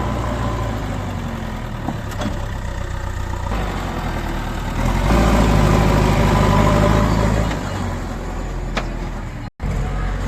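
Heavy diesel engine of working earthmoving machinery running, revving up louder for about two and a half seconds midway before settling back. The sound cuts out for a split second near the end.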